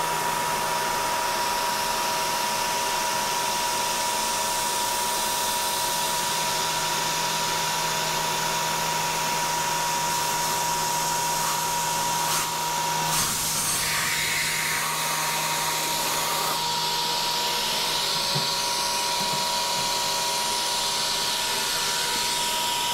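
CNC Bridgeport milling machine running a small end mill through thin sheet aluminum. A steady spindle whine sits under the constant hiss of the coolant spray.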